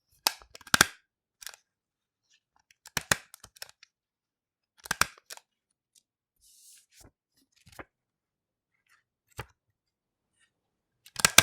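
A stapler stapling sheets of paper: sharp metallic snaps and clicks in quick clusters, repeated about every one to two seconds, loudest just after the start and again near the end. A soft short rustle about midway.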